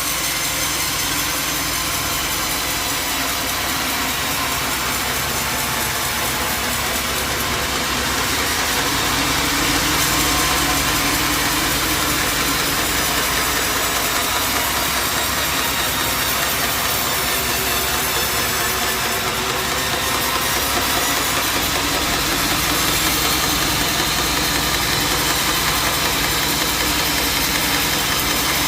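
Sawmill machinery running steadily: an engine drone with a loud, even hiss over it that swells slightly a couple of times.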